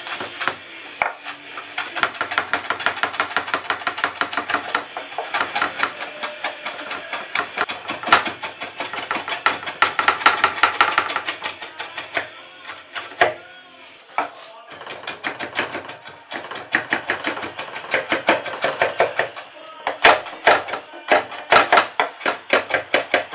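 Kitchen knife finely chopping pickled jalapeños on a wooden cutting board: a quick run of knocks on the wood, several a second, easing off for a few seconds a little past halfway.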